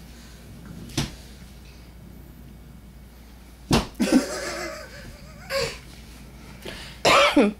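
A toddler's open hands slapping a wall twice, sharply, as he grabs at a laser dot. Then come excited vocal squeals and laughter, the loudest a falling squeal near the end.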